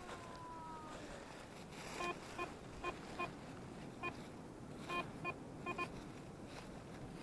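Garrett ACE 350 Euro metal detector giving short, clipped beeps, about nine at irregular spacing in a run near the middle, as the search coil passes over metal targets in the ground.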